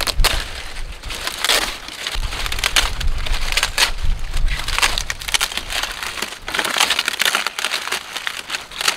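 Dry, dead banana leaves crackling and tearing as they are pulled off the plant and crushed together into a bundle in the hand, a dense run of crisp snaps and rustles.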